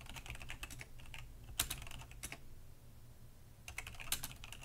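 Typing on a computer keyboard in three quick bursts of keystrokes with short pauses between them.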